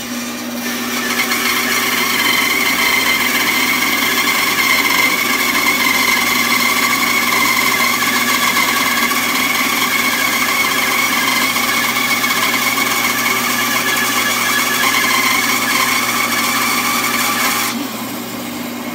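Benchtop band saw cutting lengthwise through a wooden log, the blade's cutting noise setting in about half a second in and holding steady over the motor's hum. Near the end the blade comes out of the wood and the saw runs on free.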